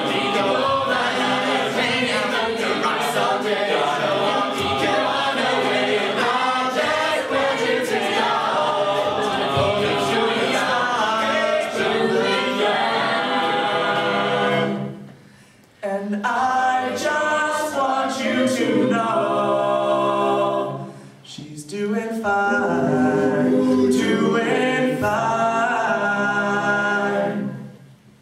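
Mixed-voice a cappella group singing a pop song in close harmony, the closing bars of the piece. The singing breaks off briefly twice, returning each time as long held chords, and ends with the final chord about a second before the end.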